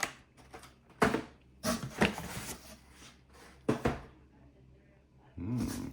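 Cardboard shipping box and packaging being handled and opened: a handful of sharp knocks and rustles, spread about a second apart.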